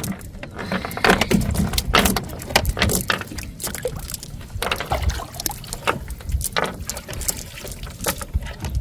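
Irregular splashing and knocking in water, a few sharp splashes a second over a low rumble.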